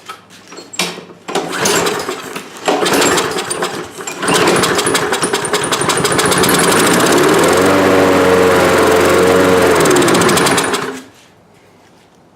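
Briggs & Stratton lawn mower engine being started after a shot of starting fluid into the carburetor intake. It runs unevenly for the first few seconds, then settles into a steady run and cuts off about eleven seconds in. The starting fluid has got the chokeless engine going.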